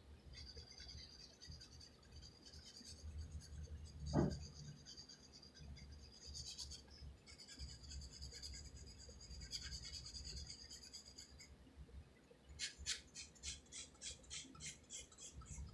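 Graphite pencil scratching on paper: longer shading strokes, then a run of short, quick hatching strokes, about three a second, near the end. A single soft thump about four seconds in.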